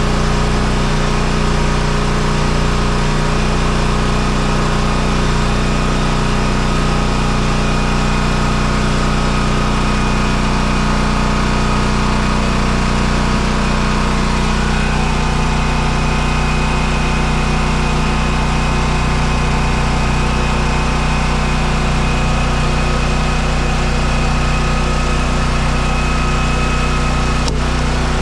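An engine running steadily at a constant speed, its tone shifting slightly about halfway through.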